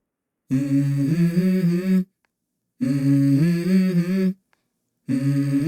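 A voice hums a short melody in three phrases, with brief silences between them: the opening of a song.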